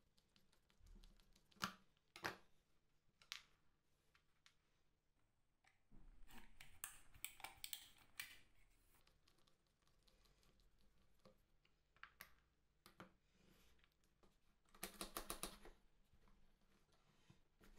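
Small metal clicks, taps and scraping as a screwdriver and a utility-knife blade work at the steel front plate of an old AXA glazing point driver, taking it apart. Scattered single clicks, a scraping stretch midway, and a quick run of clicks near the end.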